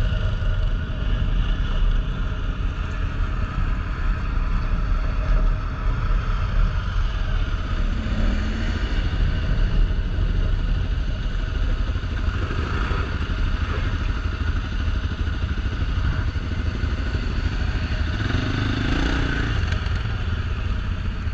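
Can-Am Outlander 1000 ATV's V-twin engine running steadily under way, with a couple of brief changes in pitch as the throttle varies.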